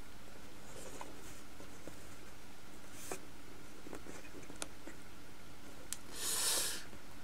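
Faint clicks and taps of plastic Strike Gundam model kits being handled and set on a tabletop: a few scattered light clicks over a steady background hiss, with a brief soft hiss about six seconds in.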